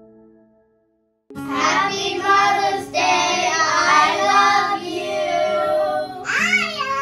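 A group of young children singing together in unison, starting about a second in after a brief silence; a last fading note of the earlier music dies away just before.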